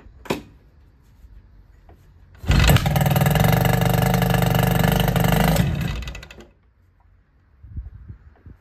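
Two-stroke racing outboard engine catching about two and a half seconds in and running loud and steady for about three seconds before dying away. A couple of sharp clicks come before it.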